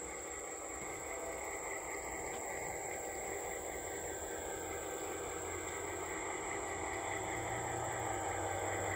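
G-scale Western Maryland BL2 model diesel locomotive and slug running on garden-railway track toward the listener, a steady running hum growing slightly louder as it nears, over a constant high insect buzz.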